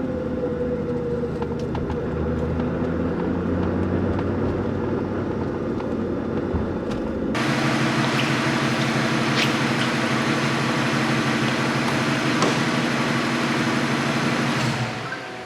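Ford Mustang Cobra's V8 running as the car is driven, with an abrupt cut about halfway through, after which the engine note holds steady.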